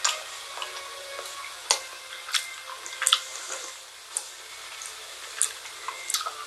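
Close-up eating sounds from a Gugu Cone ice cream cone: about eight sharp, separate crunches and crackles as the wafer cone and its paper sleeve are bitten and handled.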